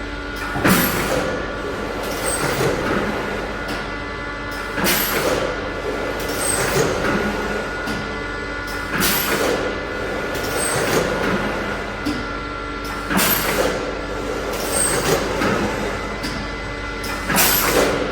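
Chendi automatic octopus (carousel) screen printing machine running through its print cycle: a steady mechanical hum under a loud rush of noise about every four seconds, with a lighter burst midway between.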